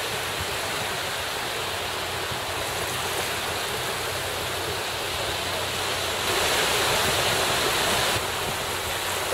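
Small sea waves washing in shallow surf, a steady rushing with wind buffeting the microphone; the rush swells louder for about two seconds near the end.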